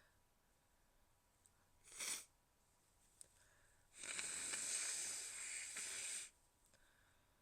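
A short, stifled sneeze about two seconds in that swells and is cut off, then a rushing nose blow lasting about two seconds.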